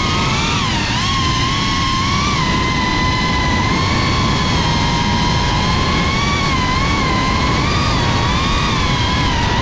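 GEPRC CineLog35 FPV drone's brushless motors and propellers whining, heard from the camera on board: a high tone with overtones that dips and rises with the throttle, most clearly about half a second in.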